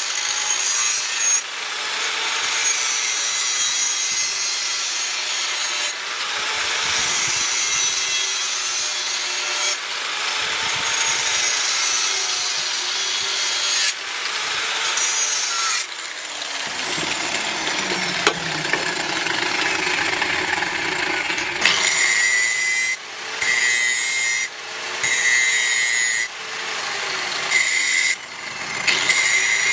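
Electric angle grinder with an abrasive cut-off disc cutting through square metal tubing in long steady passes, its motor whine falling away a little past halfway. In the last third, a grinder with a sanding disc grinds a small piece of metal in short strokes of a second or two, with brief gaps between them.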